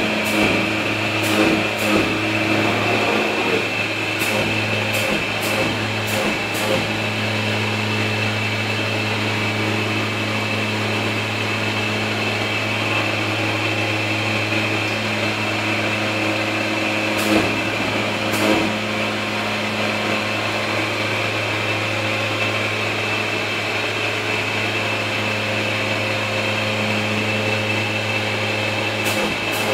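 CNC flatbed cutting plotter cutting EVA foam, running in a steady hum with a high whine. Sharp clicks come now and then: a few near the start, several around five to seven seconds in, two more past the middle and a few near the end.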